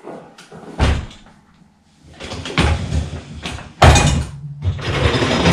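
An older dial-operated dishwasher's front door coming open with a thump about a second in, then its wire dish rack rolling out on its rails with a rattle and one loud knock midway.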